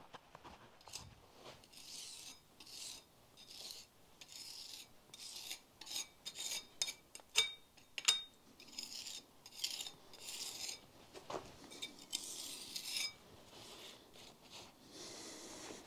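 A steel trowel scraping concrete against stone in a run of short, repeated rasping strokes, with a few sharp clicks of tool or stone on stone around the middle.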